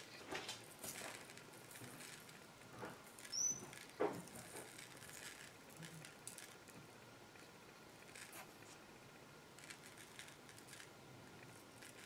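Faint handling sounds: light taps, scrapes and rustles of paper butterfly embellishments and a small spoon moved about on a cloth-covered table, with two louder taps about three and a half and four seconds in and a brief high squeak just before them.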